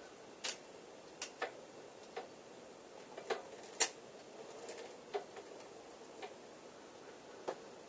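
Irregular sharp clicks and light metallic taps from hand tools working on a bicycle's chain guide by the crank arm, about a dozen spread unevenly over several seconds.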